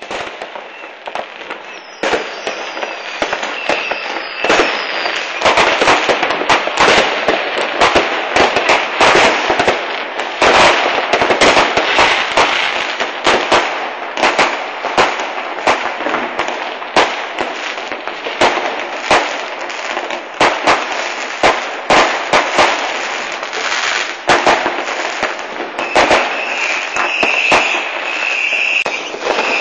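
Many fireworks and firecrackers going off together: a dense, continuous run of bangs and crackling with hardly a gap between them, getting louder about two seconds in.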